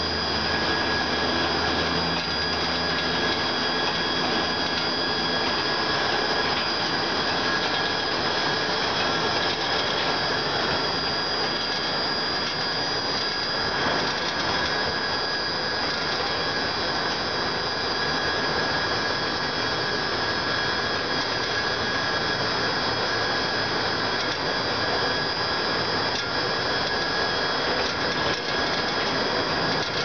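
Construction hoist's drive running as the car climbs its mast: a steady mechanical whine of several high tones over a rough drone. A low hum fades out about three seconds in.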